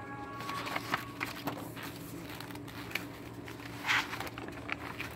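Sketchbook paper rustling as a spiral-bound page is handled and turned, with a louder rustle about four seconds in. A brief high tone sounds near the start, over a faint steady hum.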